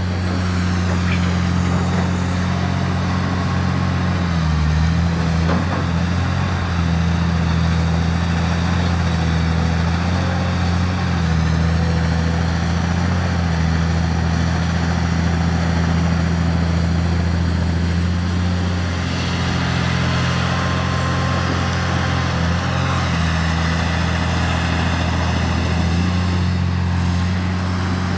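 Diesel engine of a Komatsu PC350LC long-boom excavator running steadily under working load, a constant low hum with small dips in pitch as the boom and bucket are worked.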